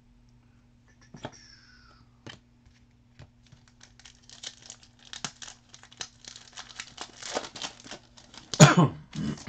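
Panini Crusade trading-card pack wrappers crinkling and tearing as packs are ripped open and the cards handled. A few light clicks come first, then steady crackly rustling, and one loud sharp rip near the end.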